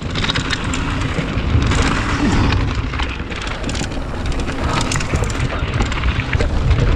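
Wind rumbling on the camera microphone as a mountain bike rolls fast down a loose gravel trail, with the tyres crunching over stones and many small clicks and rattles from the bike.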